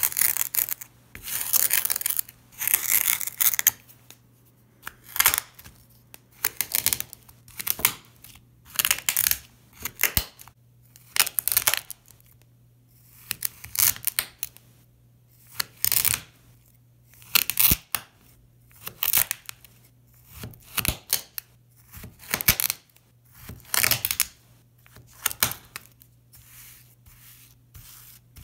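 Packed sand on a mirror crunching as a knife slices and presses through it, in short bursts about once a second; the crunches get shorter and softer near the end.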